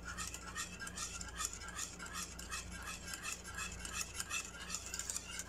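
Metal wire whisk stirring a thickening cornstarch pudding in a saucepan: repeated soft scraping and clinking strokes, about three a second.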